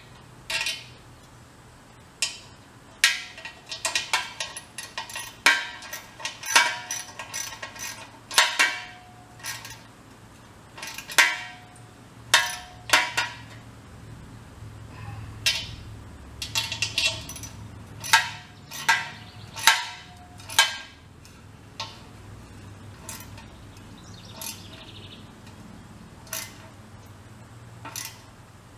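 Irregular metallic clinks and knocks, some with a brief ring, as a part is fitted and fastened onto a hollow steel 5-gallon portable air tank by hand. The clinks come in quick clusters and thin out over the last several seconds.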